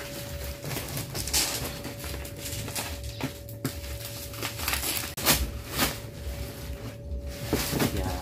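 Plastic wrapping crinkling and tearing as a taped package is cut open with a blade, with several sharper rips along the way.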